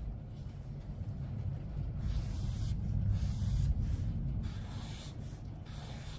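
Permanent marker drawn across paper: a soft hissing scratch with each stroke, several short lines in a row, over a low steady rumble.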